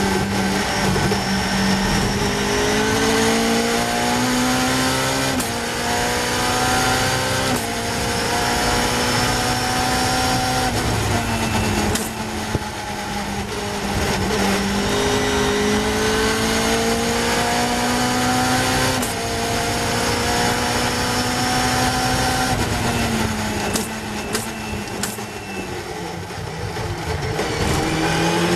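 Caterham Seven racing car's Cosworth 2.4-litre four-cylinder engine heard from the cockpit, revs climbing hard through the gears and dropping back at each upshift. About three-quarters of the way through the revs fall away as it brakes and downshifts for a corner, then climb again near the end, over steady wind rush.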